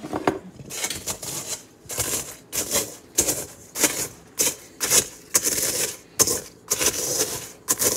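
Ritz crackers being crushed with a stone pestle in a stainless steel mixing bowl: a run of sharp crunching strikes, about two a second, as the crackers break down into fine crumbs.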